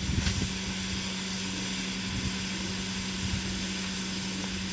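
Steady airy hiss over a constant low hum, with a few faint ticks.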